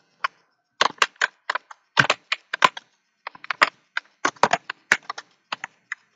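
Typing on a computer keyboard: quick, irregular keystrokes in short runs with brief pauses.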